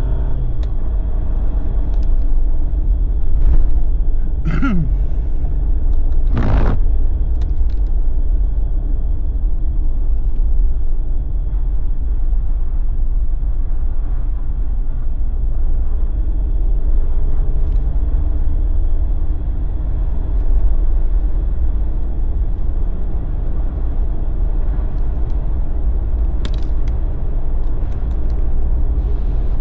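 A Jeep driving on the road, heard from inside the cabin: a steady low rumble of engine and tyres, with a couple of short sharp clicks about four and six seconds in.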